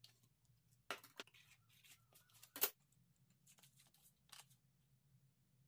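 Metal rulers and a square handled and set down on a worktable, making a few light clacks, the loudest about two and a half seconds in, along with card stock being handled and rustled. A faint low hum runs underneath.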